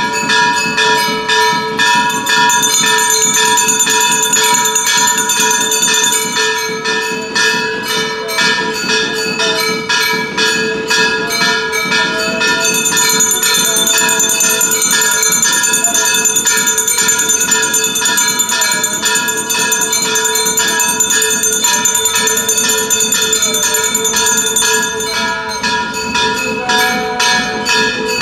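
Brass temple bells rung rapidly and without pause during an arati lamp offering, several strikes a second with a steady ringing tone. A higher jingling layer joins in for long stretches.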